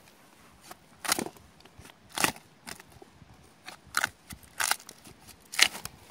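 Pine bark being pried and torn off a stump, cracking sharply about five times.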